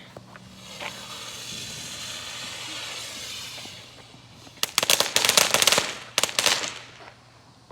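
Roman candle firework: a fuse hisses for about three seconds, then a rapid string of sharp pops about halfway through and a shorter second string just after.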